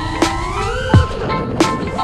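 Electronic background music with a gliding melodic line over sharp drum hits.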